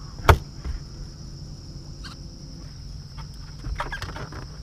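Crickets chirring steadily, with one sharp knock about a third of a second in and a few softer clicks and knocks near the end.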